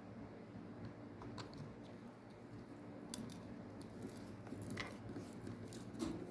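A few faint clicks and light scrapes of small parts being handled as a cap is worked off a Daiwa fishing reel during disassembly.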